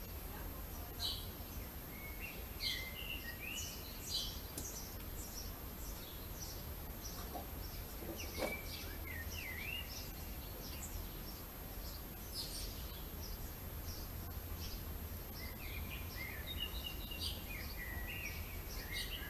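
Small songbirds chirping and calling, with many short high chirps and quick sweeping notes coming in clusters, over a steady low background rumble.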